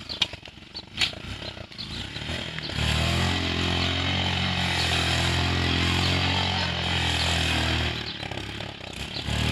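Sport motorcycle engine revved high and held at steady revs for about five seconds while the rear wheel spins the bike round in a 360 on loose dirt, then backing off near the end. Before the revs come up it runs quieter, with a few sharp clicks.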